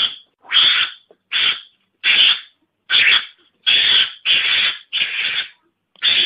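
Mongoose lure call played from a recording: about nine short, harsh, hissy animal calls in a row, each about half a second long, with brief silent gaps, a couple running nearly together.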